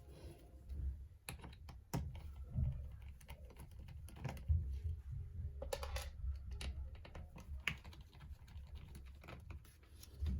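Scattered small clicks and taps of a screwdriver and hands working on a laptop's hinge screws and plastic casing.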